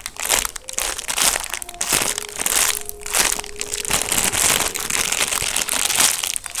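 Crinkly wrapping crumpled and rustled by hand, an uneven crackle that goes on with only short breaks.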